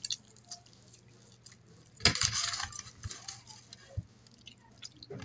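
Hands squeezing and rubbing raw chicken wings with salt and pepper: one wet, squelching rush about two seconds in, with a few light clicks of handling, quiet in between.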